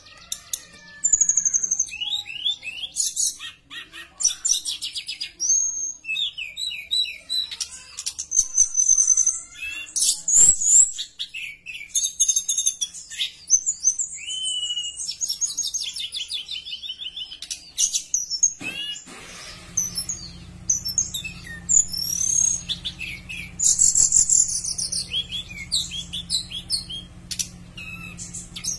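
Blue flycatcher (tledekan) singing a fast, varied song of sharp chirps, rising and falling whistles and buzzy trills. A steady low hum comes in behind it about two-thirds of the way through.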